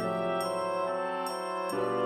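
Background music: sustained chords with a few light high ticks of percussion, moving to a new chord near the end.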